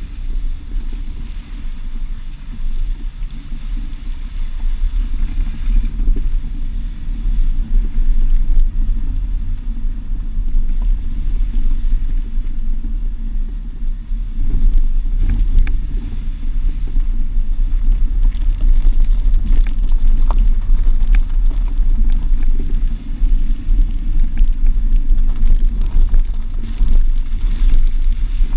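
A Jeep being driven, heard from a camera on its driver-side mirror: a steady low rumble of engine, tyres and wind on the microphone, growing louder over the first several seconds, with a few faint clicks.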